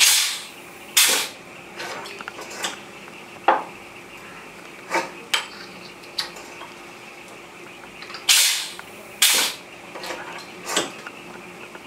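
Pneumatic perfume bottle crimping machine working through two crimps. Each crimp gives two short bursts of air a second apart, which fits the press and the release of the pedal. Between the crimps come light clicks and clinks from the bottles and the metal tooling.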